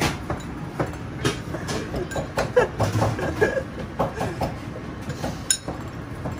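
Commercial kitchen background: a steady low rumble with irregular clicks and clatter running through it.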